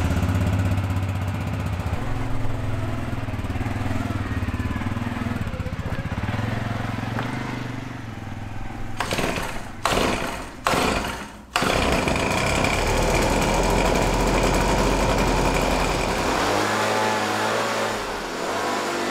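Gas-powered handheld leaf blower running steadily, its engine note rising and falling as the throttle changes, blowing dirt and debris off the floor of a steel shipping container.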